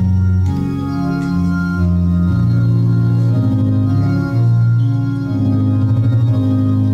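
Organ playing a hymn in slow, held chords that change every second or so.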